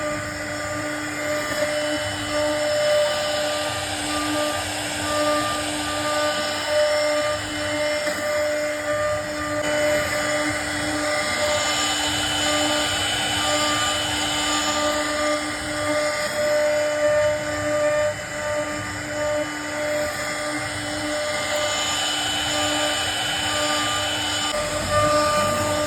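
CNC router spindle running with a steady high whine while the bit cuts wood, the cutting noise swelling and easing a little as the load changes.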